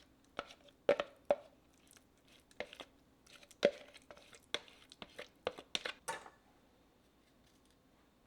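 About a dozen sharp, irregular taps and knocks of things being handled and set down over about six seconds, then they stop.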